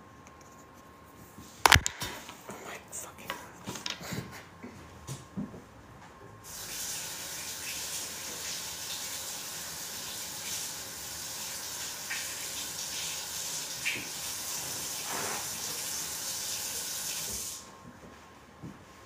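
A sharp click about two seconds in and a few lighter clicks, then a steady hiss for about eleven seconds that cuts off suddenly.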